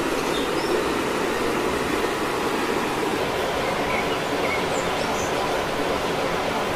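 Steady rush of flowing water, with a few faint, short high chirps.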